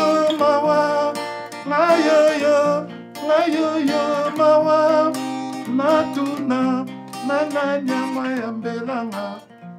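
Acoustic guitar playing under a man singing a slow melody with vibrato; the music fades out near the end.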